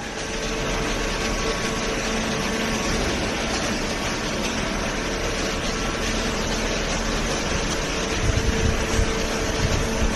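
Hydraulic scrap baler running: its motor and pump make a steady whir with a constant hum, and uneven low thumping joins near the end.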